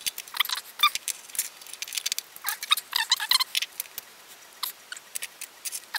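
Small 3D-printed plastic parts and a wire hairspring of a toy watch balance wheel being handled on a wooden table: irregular light clicks, taps and scrapes, a few with a brief ringing tone, busiest around the middle.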